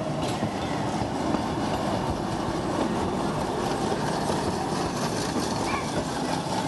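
Historic electric streetcar, powered from overhead wires, rolling past at low speed: a steady rumble of steel wheels on rail with light clicks.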